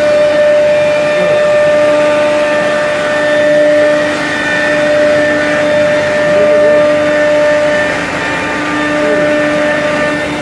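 XQ2165 CNC router's spindle running with a steady whine of several tones over a noisy hiss, cutting a composite panel.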